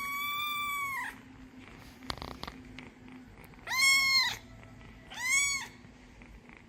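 A cat meowing three times in high-pitched calls: a long one that ends about a second in, then two shorter, arched meows about four and five and a half seconds in.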